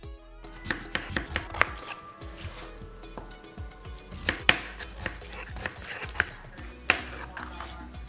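Kitchen knife chopping peeled potatoes into chunks on a cutting board: irregular sharp knocks of the blade hitting the board, several in quick succession about a second in, then spaced-out single knocks.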